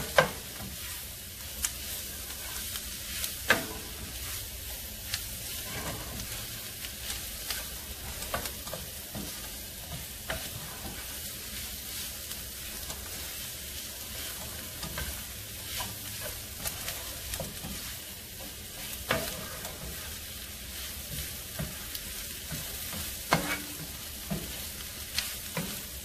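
Diced chicken, green bell pepper, onion and mushrooms sizzling in a nonstick frying pan as a spatula stirs them, while the flour is being cooked through. A steady frying hiss runs throughout, with a few sharp clicks of the spatula against the pan.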